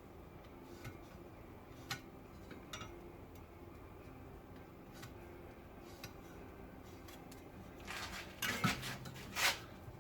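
Hand tools and sheet steel being handled on a workbench: a few faint scattered clicks, then a short burst of metallic clattering and scraping near the end.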